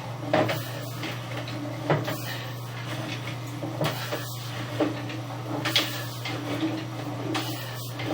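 Sewer inspection camera gear knocking and clattering irregularly, about six sharp knocks, over a steady low electrical hum.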